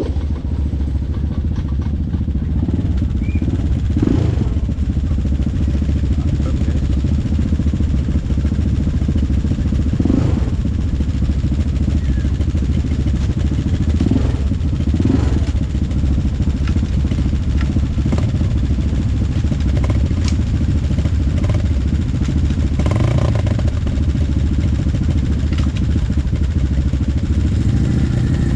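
ATV engine running steadily under way, with occasional short knocks and rattles, typical of riding over rough ground.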